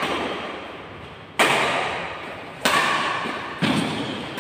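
Badminton rackets striking a shuttlecock three times in a doubles rally. Each hit is a sharp crack followed by a long echo that dies away over about a second in the large hall.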